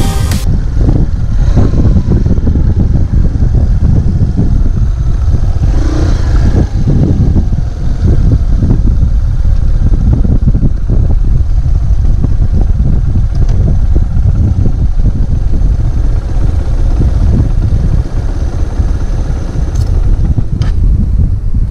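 Motorcycle on the move: heavy wind buffeting on the microphone over the engine running, steady throughout, with a couple of short clicks near the end.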